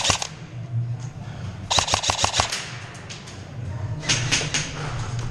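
Airsoft rifles firing in short, rapid bursts of sharp snapping shots: a burst ending just as it begins, a loud string of about eight shots about two seconds in, and a softer burst about four seconds in.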